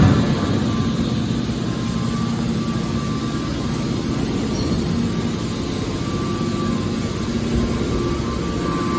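Hydraulic scrap metal car baler running, a steady, dense mechanical drone with a low hum, and a sudden knock at the very start.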